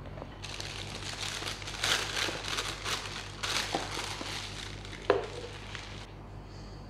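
A thin plastic piping bag filled with cake batter crinkles and rustles as it is handled and twisted shut, with one sharp knock about five seconds in. The crinkling stops about six seconds in.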